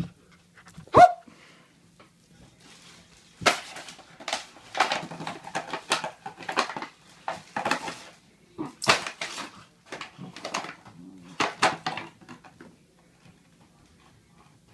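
A standard poodle puppy gives one short bark about a second in. Then comes a long run of irregular crinkling and clattering: an empty plastic bottle being chewed and batted around on a tile floor, in bursts with short pauses between them.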